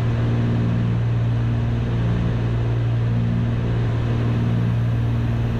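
Cessna 310's twin piston engines and propellers droning steadily in the cockpit in cruise, a constant low hum with no change in pitch.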